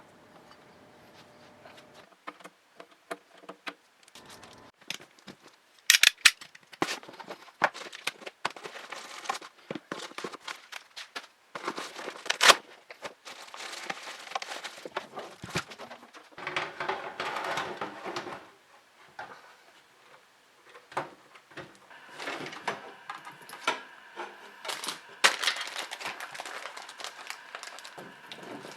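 Irregular clicks, taps and knocks with stretches of crinkly rustling: hands working on PC parts and their plastic packaging.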